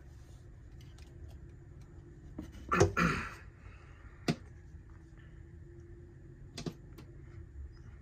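A bird pecking and striking at a window pane: a loud cluster of knocks about three seconds in, then single sharp taps a second later and again near the end.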